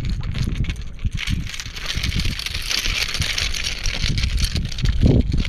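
Wind buffeting the microphone in uneven gusts, strongest about five seconds in, over the hiss of small waves washing against shoreline rocks.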